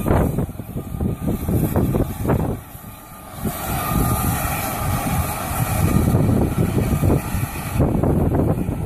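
Locomotives idling in a station yard: a low, uneven rumble, with a steady hiss joining about three and a half seconds in.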